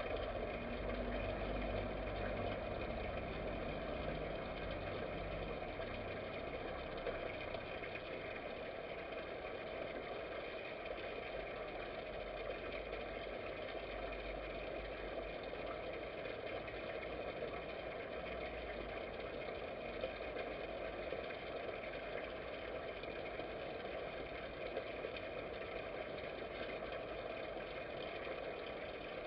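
Steady machine-like hum with hiss, unbroken throughout, with a low rumble underneath for the first several seconds that then fades away.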